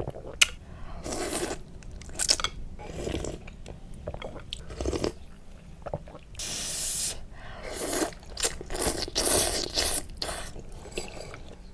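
Close-miked eating of Liuzhou snail rice noodles: irregular bites, chewing and crunching, with scraping sounds in between.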